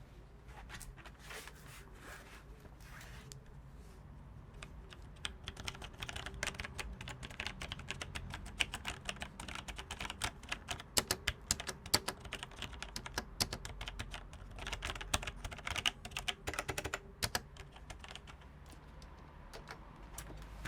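Logitech G613 mechanical keyboard being typed on, its Romer-G tactile switches clicking: a few scattered keystrokes at first, then fast, continuous typing from about five seconds in.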